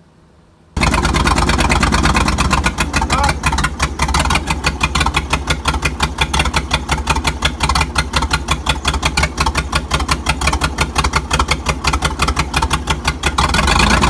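Early-1960s Dynahoe backhoe's engine running, heard close from the operator's seat as a steady, rapid chugging of evenly spaced firing pulses. It cuts in suddenly about a second in, after a brief near-quiet, and grows slightly louder near the end.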